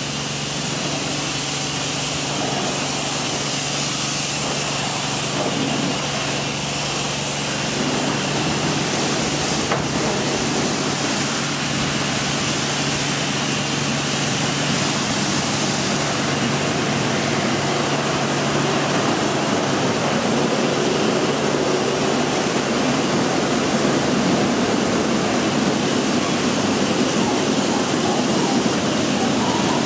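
Automatic gantry car wash at work: a steady rush of water spray and spinning brushes over a car, with a low motor hum underneath. The rush grows louder about a quarter of the way in, and the hum fades out about two-thirds of the way through.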